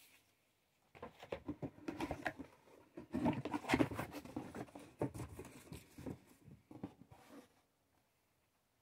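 Packaging being handled and rustled while items are taken out of a box, in irregular bursts of rustling and light knocks starting about a second in and stopping a little past seven seconds.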